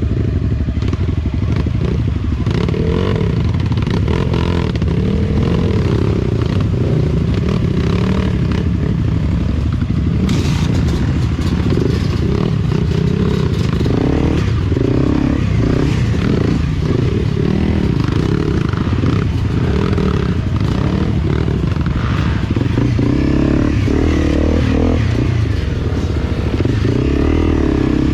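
Enduro dirt-bike engine running while riding a rough trail, its revs rising and falling, with clatter from the bike over the uneven ground.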